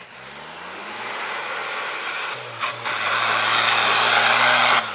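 Small off-road 4x4's engine revving hard under load as it pulls out of a muddy hole and up a dirt slope. The pitch climbs in the first second and then holds high, getting louder, and the sound cuts off suddenly near the end.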